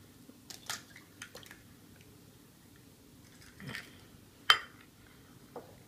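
A raw egg being cracked open by hand over a small drinking glass: a few small shell cracks and clicks, a soft wet sound near the middle as the egg slips into the glass, and a sharper click about four and a half seconds in.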